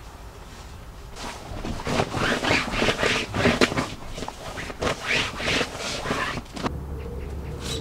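Rustling and scraping of camping bedding and a sleeping mat being handled and packed up, in a quick, uneven run of bursts that stops a little before the end, where a steady low hum takes over.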